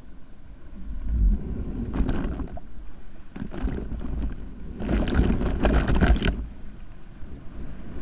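Ocean water sloshing and splashing around an action camera held at the surface in the surf, over a steady low rumble. Louder splashing comes about two seconds in, and again for about a second and a half from roughly five seconds in.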